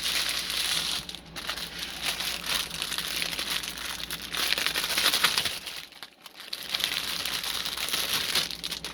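Small plastic bags of diamond painting drills crinkling as they are handled and sorted, a dense crackle with a brief lull about six seconds in.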